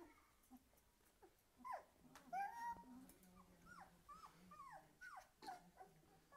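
Three-week-old puppies whimpering and squeaking as they crowd against their mother to nurse: a string of short, high, falling cries, about two a second, starting about a second and a half in.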